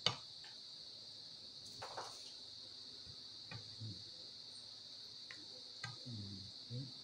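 Steady chirring of crickets, with a few sharp clicks and scrapes of a serving spoon and fork against a glass baking dish and a ceramic plate as salad is served.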